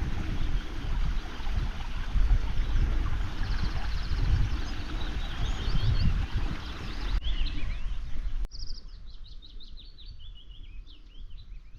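A river running, with a heavy low rumble and birds chirping over it. About eight and a half seconds in the sound cuts abruptly to a quieter scene where a small bird sings a quick series of repeated high notes.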